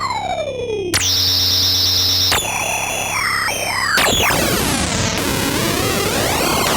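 Korg ARP 2600 FS analog synthesizer making patched sound-effect tones. A falling pitch glide gives way about a second in to a steady buzzing tone with a wavering high edge. From about four seconds in, a slow sweep dives down and climbs back up over a noisy hiss.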